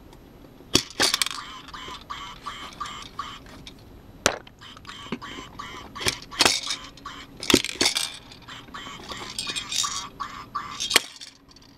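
Toy duck making quacking sounds in runs of short repeated calls, with four sharp clicks spaced about three and a half seconds apart.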